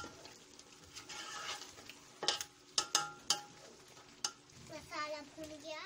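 Metal spoon stirring chicken masala in a steel pot while it fries and sizzles, with the spoon knocking and scraping against the pot several times.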